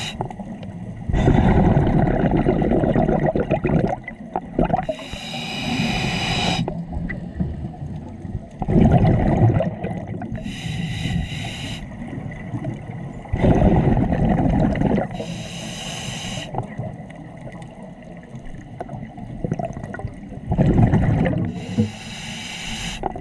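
Scuba diver breathing through a regulator underwater, about four breaths. Each bubbling, gurgling exhalation is followed by a short hissing inhalation through the regulator, roughly every seven seconds.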